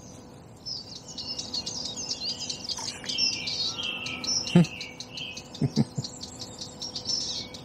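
Several songbirds singing at once, a busy chorus of quick chirps and warbles, broken by a few sharp short clicks about halfway through.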